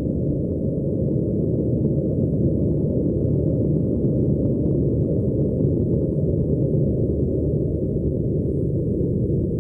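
Underground station ambience: a steady, deep rumble with no voices or distinct events in it.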